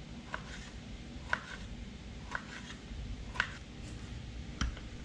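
Kitchen knife dicing raw kingfish on a cutting board: sharp chops at about one a second.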